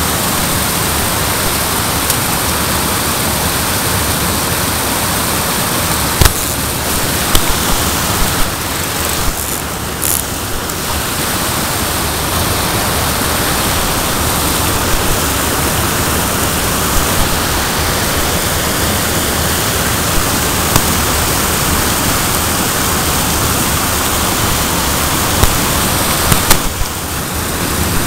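Water spilling steadily over a small weir, a continuous rushing noise, with a few brief knocks of handling.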